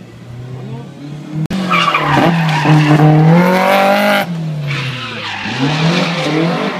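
Rally car engine revving hard as the car slides through a tarmac corner, its pitch climbing, with tyre noise from the slide. About four seconds in the engine note drops sharply, then climbs again as the car accelerates away.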